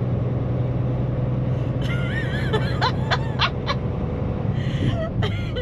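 Steady drone of a semi truck's engine and road noise inside the cab, with a woman laughing in short bursts about two seconds in.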